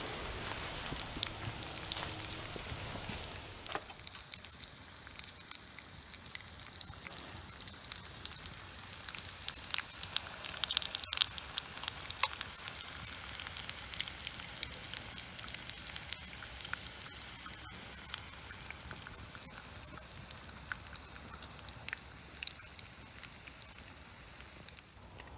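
Bacon and eggs frying in a steel skillet over campfire coals: a steady sizzle with many small pops and crackles throughout.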